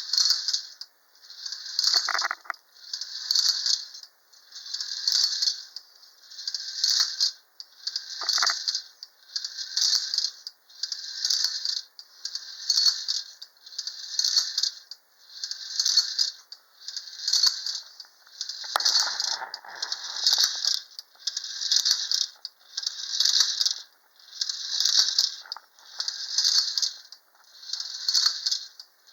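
A 1930 Unique Art Capitol Hill Racer tin wind-up toy running on its spring-driven clockwork motor: a tinny, rattling clatter that comes in even pulses about every second and a half. A sharp click sounds about 2 s in and again about 8 s in, and the clatter is fuller around 19 to 20 s.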